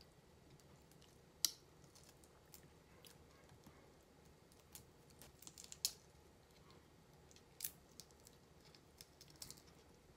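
Faint, scattered clicks and crackles of a live shrimp's shell being pulled apart by fingers, with a sharper snap about a second and a half in and a short run of clicks around six seconds in.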